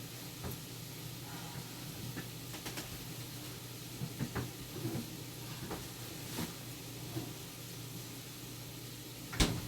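Kitchen work noises: scattered light clicks and knocks of items being handled, over a steady low hum, with one sharper knock near the end.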